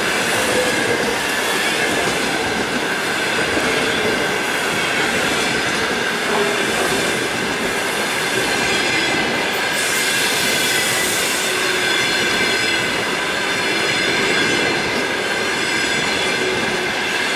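Passenger train coaches rolling past close by: a steady, loud rush of steel wheels on rails, with a thin high steady tone running through it.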